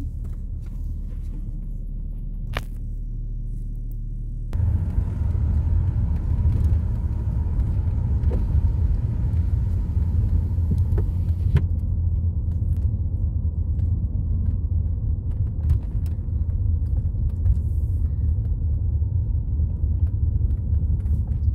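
Steady low rumble of a car driving on a country road, engine and tyre noise heard from inside the cabin. It gets suddenly louder about four and a half seconds in and then holds steady.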